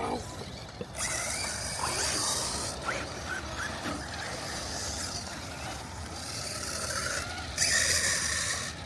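Traxxas Mini Maxx RC monster truck driving, its brushless electric motor and drivetrain whirring with tyre noise on the ground, with a louder burst near the end.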